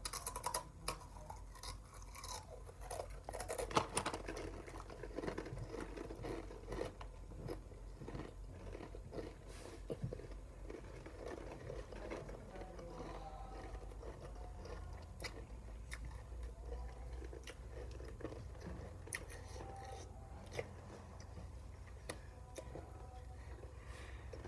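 Two people crunching and chewing mouthfuls of Takis rolled tortilla chips. The crunching is densest over the first several seconds, loudest about four seconds in, then turns to slower, softer chewing.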